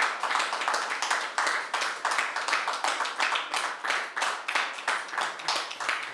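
A small group of people clapping, a dense patter of many hand claps that runs on steadily.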